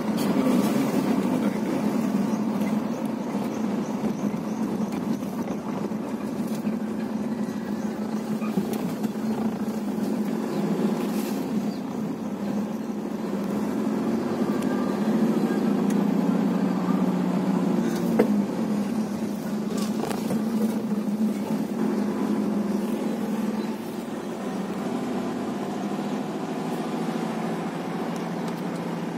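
Steady engine and road noise inside a moving car's cabin, with a single sharp click about two-thirds of the way through.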